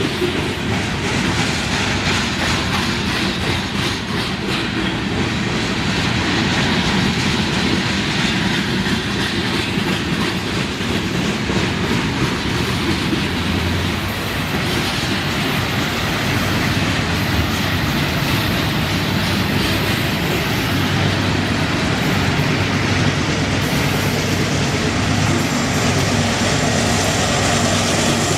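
Freight train's cars rolling past, a steady noise of steel wheels on rail with a clickety-clack over the rail joints.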